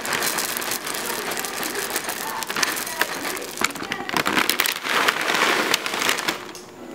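O-shaped dry cereal poured into a bowl of milk: a dense run of small clicks and rustling as the pieces land on each other, easing off near the end.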